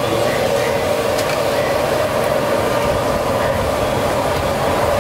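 Steady, loud rushing roar of a gas burner under a large stock pot of noodle-soup broth, with a low rumble beneath it.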